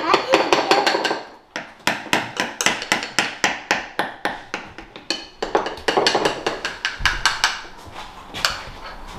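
Spoons clinking and tapping against mixing bowls and cake pans in a rapid, uneven run of clicks, about five or six a second, as cake batter is scooped into the pans.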